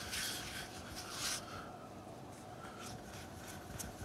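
Hands rubbing and rolling a piece of flatbread dough into a ball on a floured wooden chopping board: soft rubbing and brushing, loudest in the first second and a half, then fainter.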